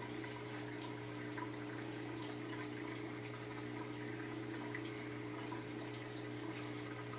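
Saltwater aquarium's pump and filter running: a steady trickle of moving water over a constant low hum.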